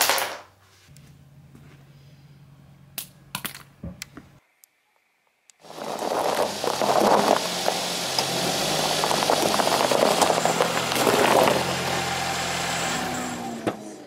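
A few faint clicks over quiet room hum. Then, about halfway through, a car starts up close by: its engine runs steadily and the tyres rumble as it rolls slowly past the flashlight lying in the grass, fading near the end.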